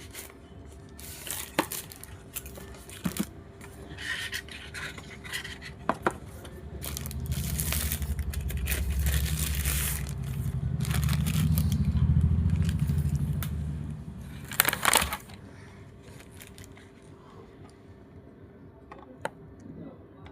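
Handling noises while a label printer is unboxed: scraping, clicks and rustling of packaging, with a louder low rumble from about a third of the way in to just past halfway, ending in a sharp click.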